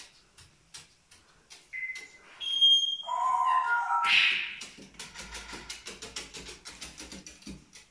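Sulphur-crested cockatoo giving a few short clear whistles, then a harsh squawk about four seconds in, followed by a fast, even run of light clicks, about seven a second.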